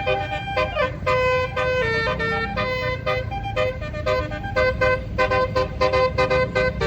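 Telolet multi-tone bus horn playing a fast tune of short notes, over the low rumble of the bus engine.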